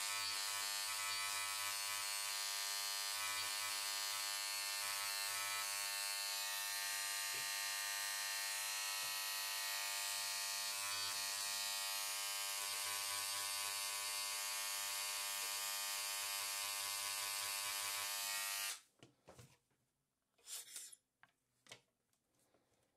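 Pen-style fossil-preparation scribe buzzing steadily with a high hiss as its needle tip chips shale matrix away from a trilobite. It cuts off suddenly about 19 seconds in, followed by a few faint clicks.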